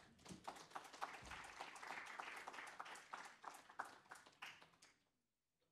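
Light applause from a seated audience, many scattered hand claps that stop abruptly about five seconds in.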